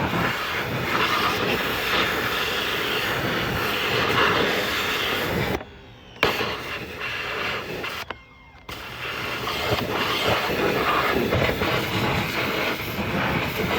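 Pressure washer spray blasting against a car's underside through a pivoting swivel nozzle adapter, a steady hissing rush. It cuts out briefly twice around the middle as the trigger is let go, then comes back.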